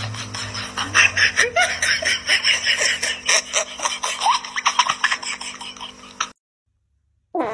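A person laughing in quick pulses over a steady low hum. The laughter fades and cuts off suddenly about six seconds in.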